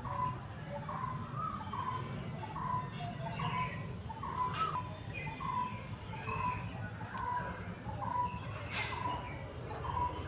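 Rural ambience: a bird repeating a short call about every half second, with other birds calling now and then, over the steady pulsing chirr of crickets.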